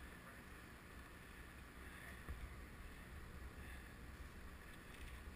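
Faint wind noise on the microphone: a steady low rumble with no distinct events.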